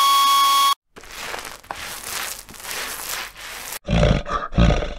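A held high tone cuts off suddenly under a second in. After a brief gap comes about three seconds of scratchy rustling noise, then a deep animal roar in two loud surges near the end.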